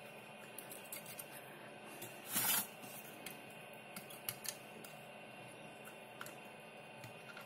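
Quiet handling sounds of soldering work on a battery pack: scattered light clicks and taps, with one short scraping rustle about two and a half seconds in.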